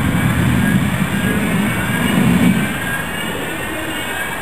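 Tram running on its rails with a low rumble and the slowly rising whine of its electric traction motors as it gathers speed. The rumble drops away a little over halfway through.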